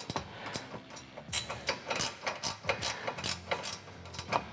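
Hand wrench ratcheting in short, uneven strokes, a few sharp clicks a second, as bolts are tightened down.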